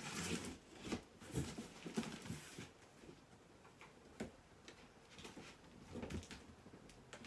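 Faint scraping and rustling of a cardboard box being cut open along its top, in short scratchy strokes for the first two or three seconds, then a few scattered light knocks.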